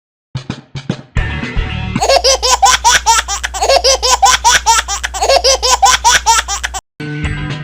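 Edited cartoon laughter sound effect: a fast, high-pitched run of short rising-and-falling laughs over a steady low hum, starting about two seconds in after a few clicks and snatches of music, and cutting off suddenly near the end.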